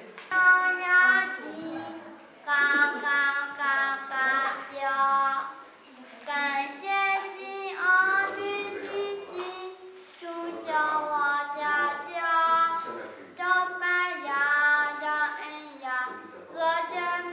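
A young girl singing a song on her own, in sung phrases of a few seconds each with short breaks for breath.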